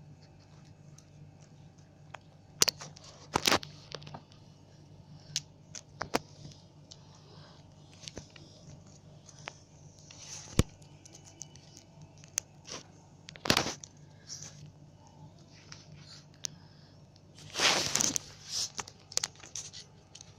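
Scattered clicks and taps with a few short bursts of rustling, the longest near the end, over a steady low hum in a small room.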